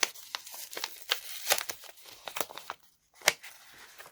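Craft-kit packaging crinkling and rustling in the hands as a small packet is handled and opened: a quick run of sharp crackles, a short pause, then one loud crackle about three seconds in.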